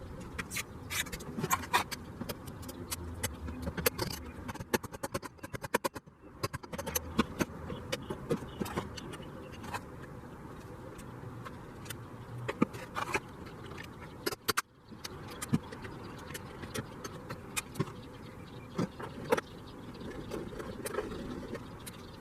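Irregular clicks, taps and light clinks of hand work on a Jeep's sheet-metal body, over a steady background hiss. The sound cuts out briefly twice.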